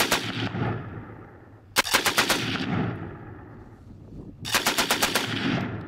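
Machine gun firing three short bursts about two seconds apart, each a rapid string of shots followed by a trailing echo.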